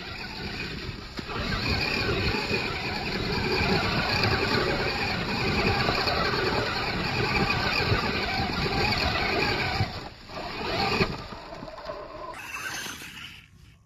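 Radio-controlled Axial Wraith rock racer driving hard through snow and dead leaves: its electric motor and drivetrain running and its tyres churning and spraying snow. The sound is loud and steady for about ten seconds, then drops, swells briefly and fades off near the end.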